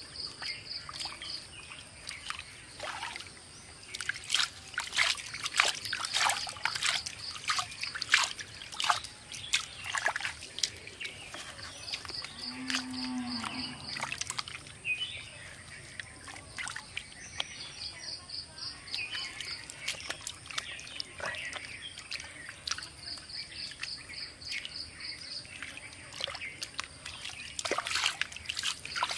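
Hands scooping and slapping through mud and shallow water, a run of short wet splashes and squelches that comes in bursts. A high, rapidly pulsing bird-like trill repeats in the background.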